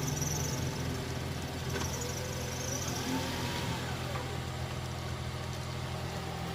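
Off-road vehicle's engine idling steadily, with a faint rising and falling tone a little past halfway.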